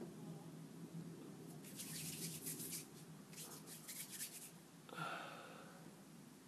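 Faint crackly rustling of hands pressing and working blue play dough on a ceramic tile surface, in two short spells, over a low steady hum. A short breathy sound about five seconds in.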